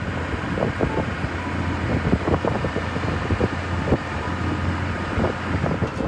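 A vehicle driving on the road, heard from inside the cab: a steady low drone of engine and road noise with frequent short rattles and knocks.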